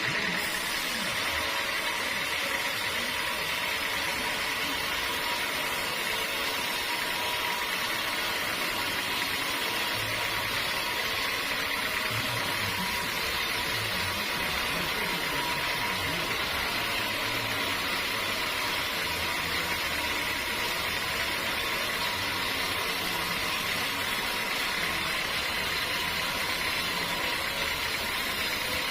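Sawmill machinery running steadily, an even noise with a steady high whine.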